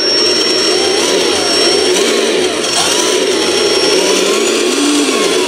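Simulated diesel engine sound from an RC truck's Cross RC SK2 sound module, played through small temporary speakers and revving up and down with the throttle, with a thin whine gliding up and down above it. The owner finds it not throaty enough.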